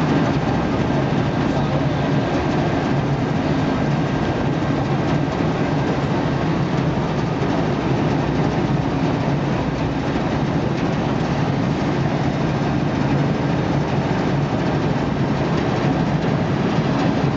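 Workboat's inboard engine running steadily, a low drone.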